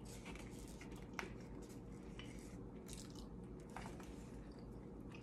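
Faint chewing of food, with a few light clicks of a plastic fork against a paper plate.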